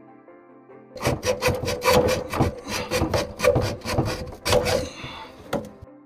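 A hand saw cutting through black ABS plastic drain pipe in quick back-and-forth strokes, starting about a second in and stopping shortly before the end. Background music plays throughout.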